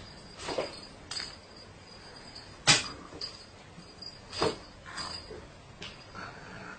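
Cardboard box knocked by a cat moving about in it: a series of irregular thumps, the sharpest about three seconds in, over a faint steady high whine.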